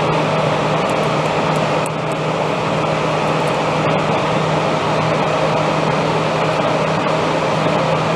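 Steady cabin noise of a Boeing 787 airliner in flight: an even rush of air and engine noise with a constant low hum underneath.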